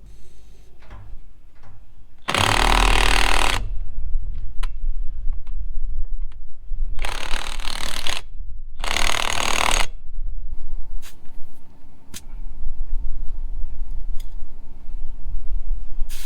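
Impact wrench run in three short bursts of about a second each, fastening a gauge wheel on a disc harrow, with metal clinks of tool handling between the bursts.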